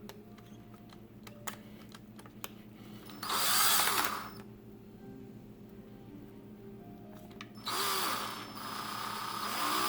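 Electric drill spinning a model car tire mounted on a bolt mandrel, run in two short spurts: one of about a second a little after three seconds in, and a longer one starting near eight seconds. A few light clicks come before the spurts.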